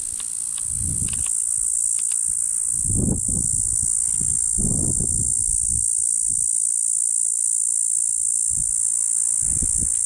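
Cicada singing a continuous, steady high-pitched buzz. A few brief low rumbles come and go underneath.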